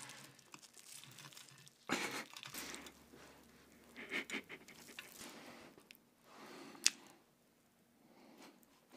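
Crisp fried breading of a breaded cutlet sandwich crackling, with shredded cabbage rustling, as gloved hands press and squeeze it, in short crunchy bursts. There is one sharp click about seven seconds in.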